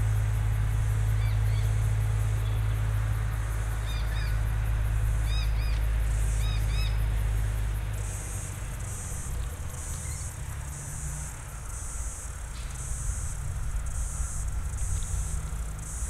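Bushland ambience: a low, steady rumble through the first half, with short arched chirps from a small bird, often in pairs. From about halfway an insect chirps in short, regular high pulses, about two a second.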